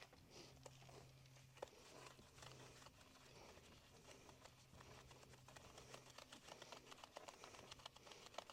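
Faint, rapid, irregular scratching of a detail brush scrubbing the outside of a motorcycle's rear wheel rim.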